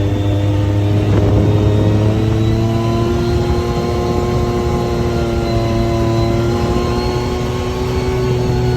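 Ford 5.0 Coyote V8 in a restored Bronco running steadily under way, its pitch creeping up slightly in the first few seconds and then holding.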